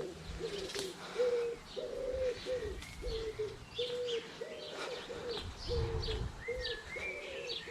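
Pigeons cooing in a steady run of short, even notes, about two a second, with small birds chirping higher above them.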